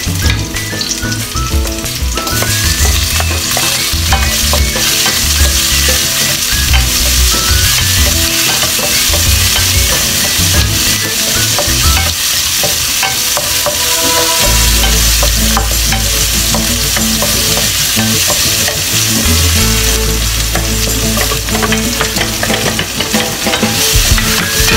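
Onion and tomato slices sizzling in hot oil in a nonstick wok, with a wooden spatula stirring and scraping through them. The sizzle is a steady loud hiss, with small clicks from the spatula.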